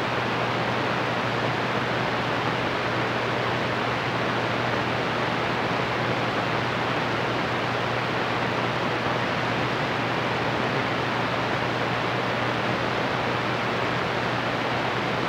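CB radio receiver on channel 21 with the squelch open, its speaker giving a steady loud hiss of band static with no station transmitting. A steady low hum runs underneath.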